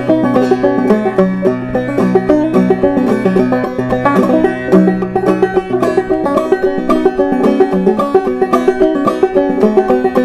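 Walnut-and-wenge banjo with a 12-inch pot and rolled brass tone ring, played clawhammer style in double C tuning: a steady, even run of plucked and struck notes.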